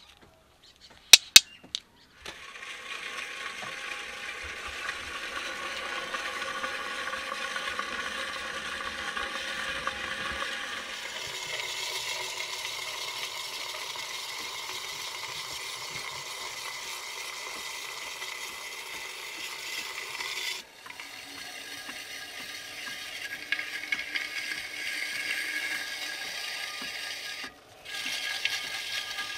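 A smooth pebble pressed against a clay pot spinning on a potter's wheel to burnish its surface: a steady scraping hiss that shifts in tone a few times and breaks off briefly near the end. Two sharp clicks come about a second in, before the scraping starts.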